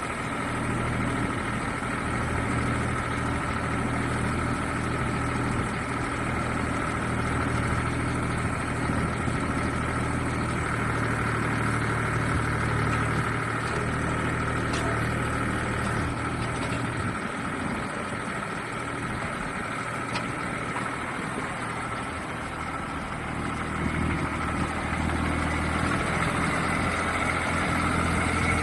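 Mini excavator's small engine running steadily, with a steady high tone above the engine note. The low engine note drops away about two-thirds of the way through and comes back a few seconds later.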